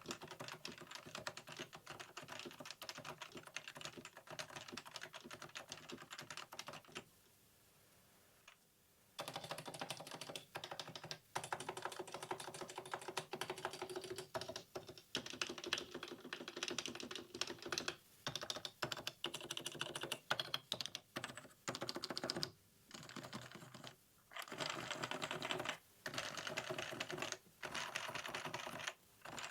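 Typing on a Sony XPRI NS keyboard with Topre electrostatic-capacitive switches: keystrokes come in dense runs. After a pause of about two seconds, typing resumes in bursts with short breaks, now on the modded board.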